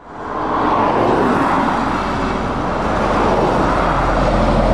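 Heavy lorries led by a red Scania tractor unit, with a car, driving past on a wet road: diesel engines running and tyres hissing on the wet tarmac. The sound fades in over the first half-second, then holds steady.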